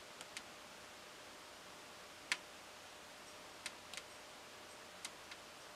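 Faint steady room hiss with about seven short, sharp clicks at uneven intervals, the loudest a little over two seconds in.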